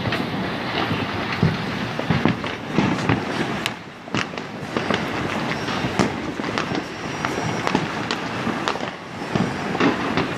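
Many fireworks and firecrackers going off at once across a city: irregular sharp bangs, some louder than others, over a continuous crackling din of overlapping explosions.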